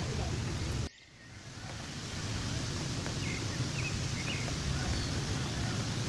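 Steady hiss of outdoor ambient noise, with a few faint short chirps from the flock of birds overhead about three seconds in. About a second in, the sound drops out abruptly and swells back over the following second.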